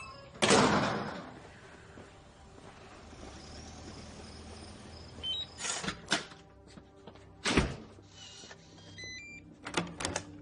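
Film sound of a door and its lock: a sudden loud hit about half a second in that dies away over about a second, then a run of sharp knocks and clicks, with short high beeps in steps before the last clicks, over a faint tense music bed.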